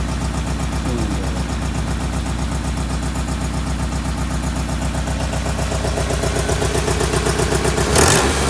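1995 Honda Accord four-cylinder engine running with a regular pulsing beat, the sound the owner takes for a misfire. A short loud rush of noise comes near the end.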